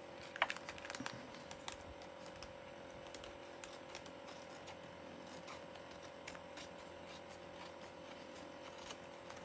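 Scissors cutting paper to trim off an overhanging edge: a run of quick snips and clicks in the first two seconds, then only faint occasional ticks and rustles.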